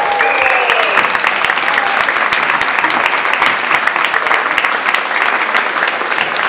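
Audience applauding, dense steady clapping, with a held pitched tone over the first second or two.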